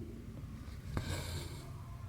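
Cotton thread being pulled through cross-stitch fabric: a sharp click about a second in, then a short rasping hiss of thread on cloth, over a steady low hum.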